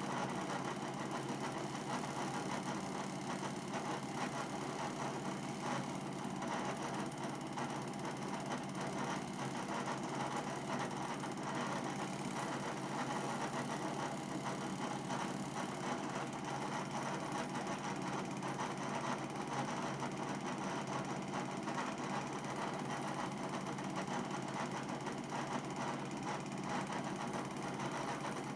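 Cine film projector running steadily, a continuous mechanical whirr with no other sound.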